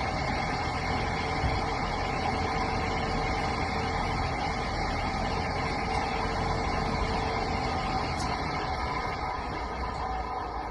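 ILG Model 243 fan's electric motor running steadily at speed: a continuous hum with a whine of several steady tones over a low rumble. One of the tones fades about eight seconds in.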